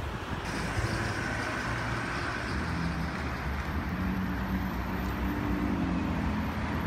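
Road traffic driving past on a busy road, with a passing vehicle's engine hum coming through from about halfway.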